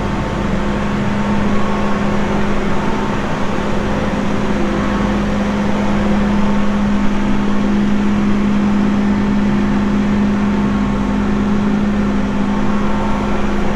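A machine running steadily: a constant low hum at one unchanging pitch over a low rumble, at an even level throughout.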